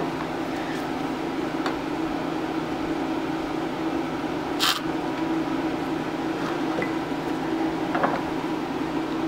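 Steady mechanical hum with a constant low tone, like a running fan or appliance. A sharp metallic clink comes about halfway through, with a few faint taps, as an aluminum bait injector is dipped into a glass measuring cup of hot liquid plastic and carried to the mold.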